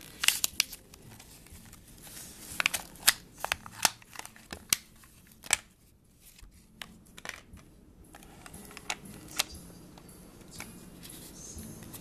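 A small plastic window alarm and its cardboard packaging being handled on a tabletop: a string of sharp clicks and taps with light rustling, easing off for a moment around the middle.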